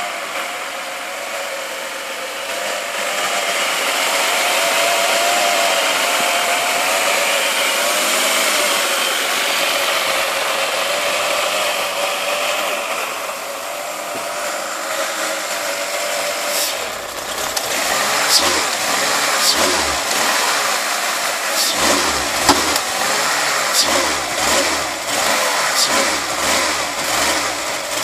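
Mercedes-Benz C36 AMG's M104 3.6-litre straight-six running badly. For the first half there is a steady rushing hiss with a wavering whine. About halfway through it turns uneven, with low irregular pulses and ticks. The owner says it will take only about 1500 rpm and misfires when cold.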